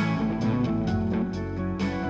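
Strandberg Sälen headless electric guitar played through an amp with keyboard accompaniment: a few picked notes ringing out over held chords, the level easing off slightly.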